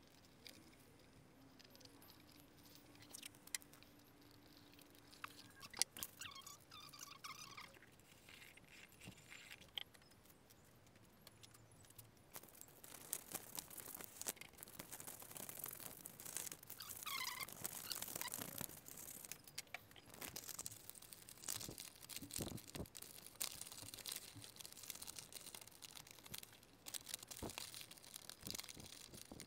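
Quiet scattered taps and clicks of hands working masking tape around a metal lamp shade's rim, then a denser scratchy rustling from about twelve seconds in as paper is cut with a craft knife and handled.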